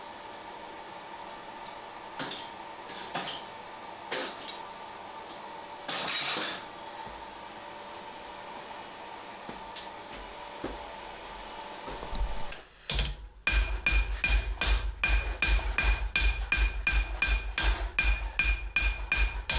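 A steady hum with a few scattered knocks, then from about thirteen seconds in a fast run of hand-hammer blows on hot steel over the anvil, about four a second, each one ringing.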